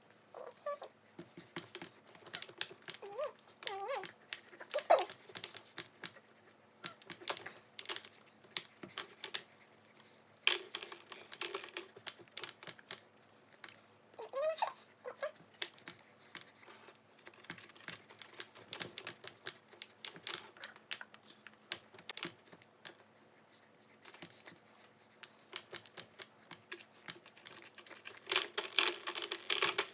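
Irregular light clicks and taps, with brief rustling bursts about ten seconds in and near the end.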